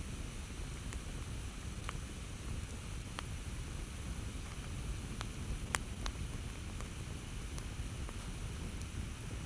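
Campfire burning: a low steady rumble of the fire with sparse, sharp crackles and pops every second or two, the loudest a little over halfway through.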